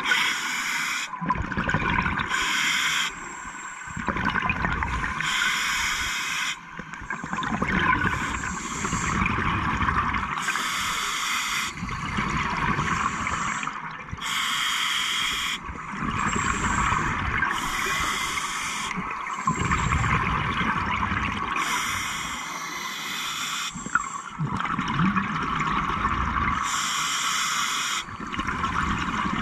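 Scuba diver breathing through a regulator underwater: a hiss on each inhale alternating with a rush of exhaled bubbles, about one breath every three to four seconds.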